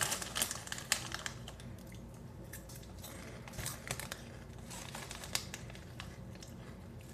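Plastic Cheetos snack bag crinkling as it is handled, in scattered short bursts of crackling.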